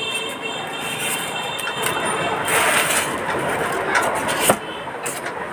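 Steady background noise, a hiss with no clear tone, swelling louder about halfway through, with a sharp click near the end.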